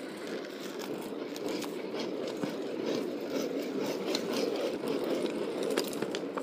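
Ripstick's small hard wheels rolling steadily over pavement, a continuous gritty rumble with small clicks and ticks from bumps in the surface.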